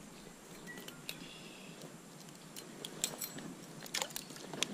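Scattered sharp clicks and ticks of fishing tackle being handled while a hooked brown trout is brought to hand, bunched in quick runs near the end.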